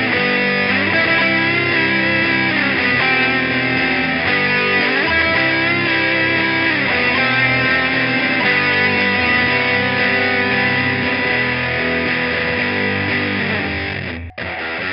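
Electric guitar played through distortion pedals, chugging out sustained heavy chords in a crushing alt-rock riff. It cuts out for an instant near the end, then carries on slightly quieter.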